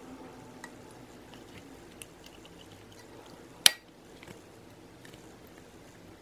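A metal spoon scooping and scraping wet foam filling out of a cut-open squishy toy into a bowl: soft squishy sounds with small scattered clicks, and one sharp clink of the spoon against the bowl a little past halfway.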